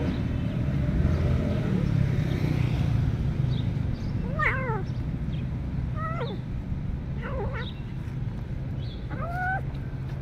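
Kitten meowing four times in short calls, the last one longer and held, over a steady low rumble.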